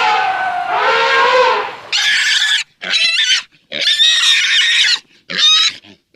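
An animal squealing: a falling call, then four high-pitched squeals in quick succession, the third the longest.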